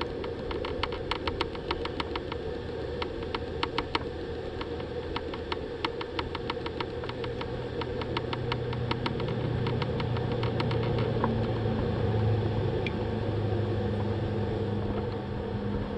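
Rapid, irregular clicking from a small handmade reel being cranked while a hooked fish is brought in, stopping about eleven seconds in. Under it runs a steady low hum that grows somewhat louder in the second half.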